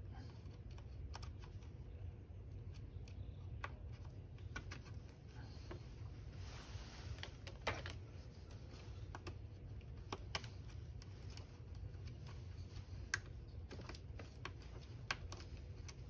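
Scattered light clicks and rattles of small plastic wiring connectors and harness wires being handled on a motorcycle, over a low steady hum.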